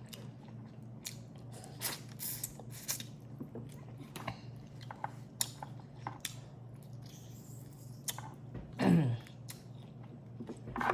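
Close-miked eating of boiled crawfish: chewing, with small crackling clicks of shells being broken and peeled. A brief hum of the voice, falling in pitch, about nine seconds in.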